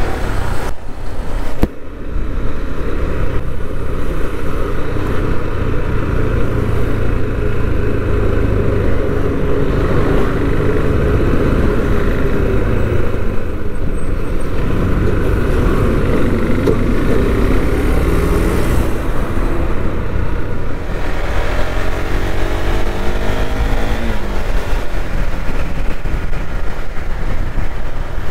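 KTM Duke 390's single-cylinder engine running as the motorcycle is ridden through traffic, heard from the rider's seat with steady road noise. About three quarters of the way through, the revs climb as it accelerates.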